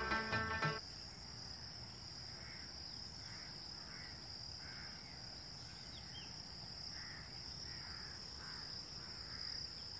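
Background music stops about a second in, leaving a steady high insect chirring, likely crickets, with about eight faint bird calls scattered over it.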